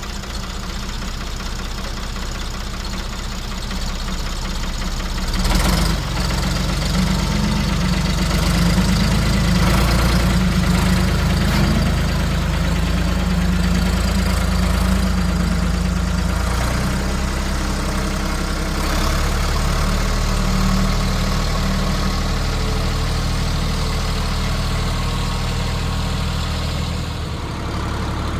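Diesel engine of a 1973 Ford 4500 industrial backhoe running. It picks up about five and a half seconds in and then holds steady.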